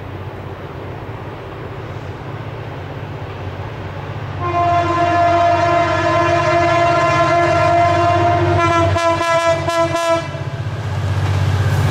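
Approaching diesel passenger locomotive sounding its horn in one long chord-like blast of about six seconds, starting about four seconds in and breaking into a few short stutters before it stops. A steady low rumble from the oncoming train runs underneath and swells near the end as the train nears.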